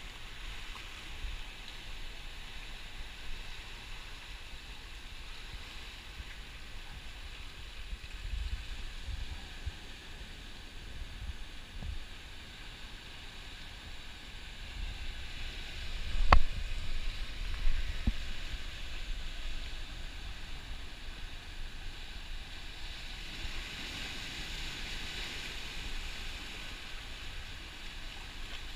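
Ocean surf washing over a lava-rock shoreline: a steady hiss of breaking water that swells near the end, with a low rumble coming and going. About halfway through a single sharp knock, the loudest sound, is followed by a smaller one soon after.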